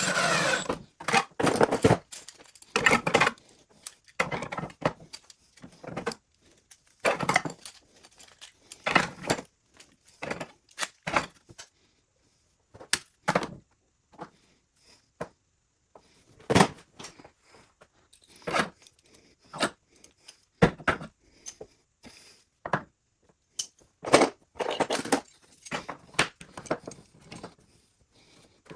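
Hand work at a shop bench: short knocks, scrapes and rattles of tools and wooden parts being handled, coming in irregular bursts with brief pauses between them.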